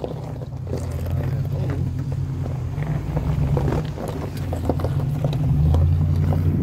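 Truck engine running with a steady low drone, growing louder about five and a half seconds in.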